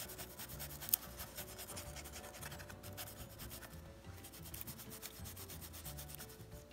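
Faint scrubbing of a cotton swab wet with lighter fluid rubbed back and forth over paper masking tape on a cardboard box, working the fluid in to loosen the tape's adhesive. A single light click about a second in.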